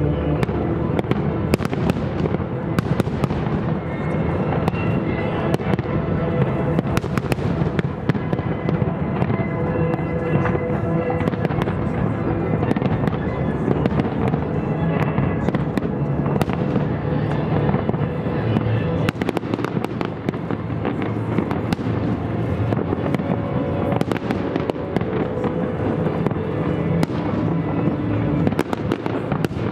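Aerial fireworks display: shell bursts going off one after another without a break, sharp cracks over a continuous low booming, with music playing alongside.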